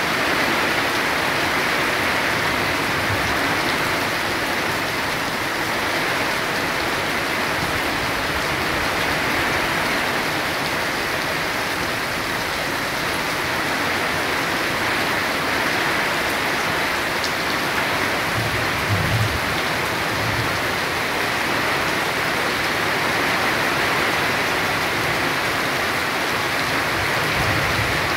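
Heavy rain pouring down steadily, with a few brief low thumps about two-thirds of the way through and again near the end.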